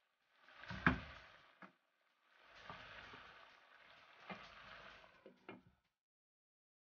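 Pork belly and chorizo frying in a stone-coated pan, stirred with a wooden spatula that scrapes and knocks against the pan, the sharpest knock about a second in. A few clicks near the end as a glass lid is set on the pan.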